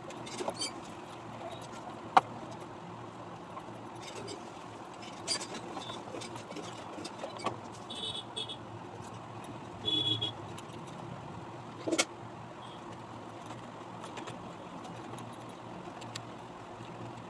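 A baby being bathed in a plastic tub: scattered small knocks and handling sounds over a steady low background hum. The loudest are sharp knocks about two seconds in and twelve seconds in, and there are two short high-pitched squeaks about eight and ten seconds in.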